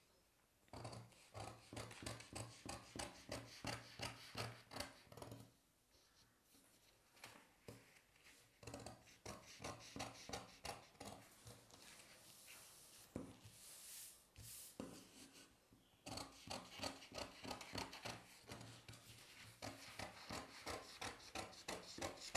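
Scissors cutting through a sheet of paper along a drawn pattern line: runs of quick, evenly repeated snips, broken twice by pauses where the paper rustles as it is turned.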